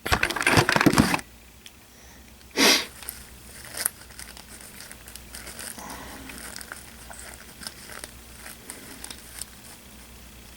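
Rustling and crinkling of an action figure and its cloth robe being handled close to the microphone. There is a louder rustle in the first second and a short one about two and a half seconds in, then softer fiddling.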